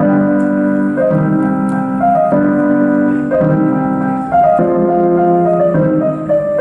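Keyboard music: slow held chords on an electric-piano-like keyboard, changing about once a second.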